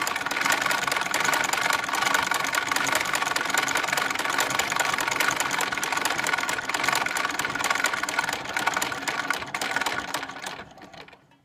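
Antique American Buttonhole and Overseaming Model 1 sewing machine running steadily while winding a bobbin, its needle mechanism running too because it cannot be disengaged: a rapid, even clatter of clicks with a whir. It dies away about ten seconds in.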